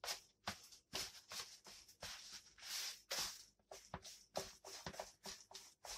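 Silicone spatula stirring and scraping butter, egg and sugar around a plastic mixing bowl, a soft scrape with each stroke, a few strokes a second: creaming the butter and sugar for cookie dough.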